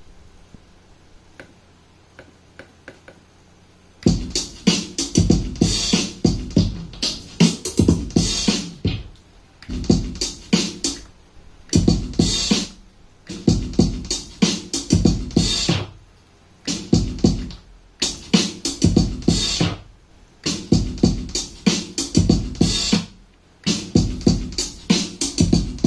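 A music track played on a Pioneer CDJ-2000NXS2 starts about four seconds in, after a few faint clicks, then keeps stopping and restarting every couple of seconds in scratch-like cuts as the jog platter is handled. This is the player's fault of vinyl mode switching on by itself.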